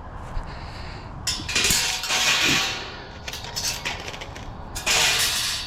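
Light metal scrap clattering and rattling as it is handled and tossed, in two longer bursts with a few clinks between them.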